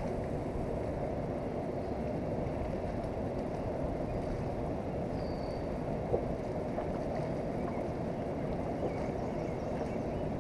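Steady rushing noise of wind and the flowing river, with one light click about six seconds in.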